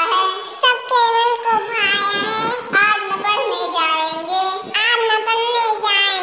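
A young child singing a Hindi children's poem in a high voice, in short melodic phrases with held notes.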